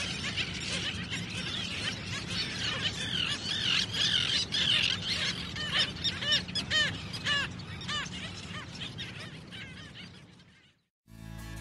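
A flock of birds calling, many short arching calls overlapping in a dense chorus over a steady low background, then thinning to single repeated calls and fading out about ten seconds in.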